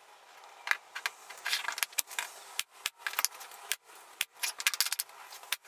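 Scattered light clicks, taps and rattles of plywood pieces being handled and set in place on a workbench.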